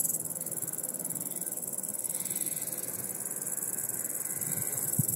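Crickets chirring steadily in a high, continuous trill.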